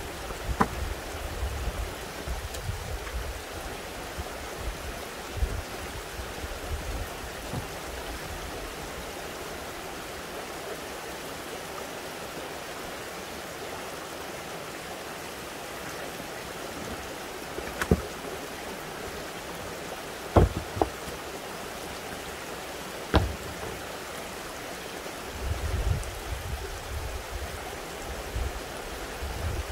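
Steady rush of running spring water, with a few sharp clacks of rocks knocking together as stones are pulled from a dry-stone wall, three of them louder in the second half.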